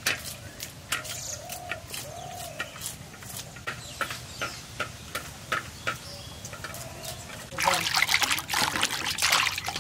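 Hens clucking among a run of light clicks and knocks. About three-quarters of the way through, louder splashing and running water takes over.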